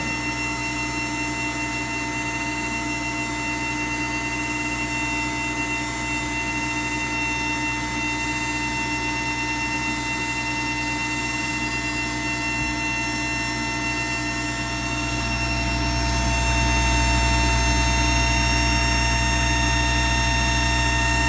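Steady whirring of an xTool D1 laser engraver setup: its cooling fans, air assist pump and exhaust vent fan, with several fixed whining tones over a low hum. About fifteen seconds in, the low hum swells and the whole sound grows louder.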